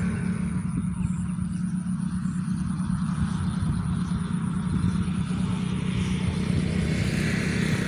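A small engine running steadily: a constant low drone with an even tone that does not change.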